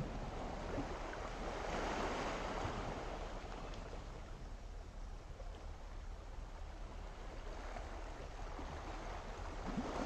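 Gentle sea waves washing onto the shore, swelling about two seconds in and again near the end.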